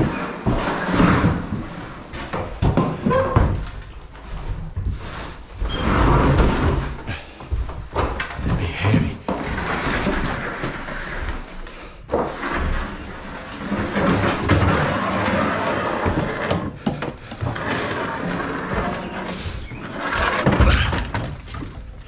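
Lath and plaster debris being gathered and tossed by hand: irregular thuds, scraping and rattling.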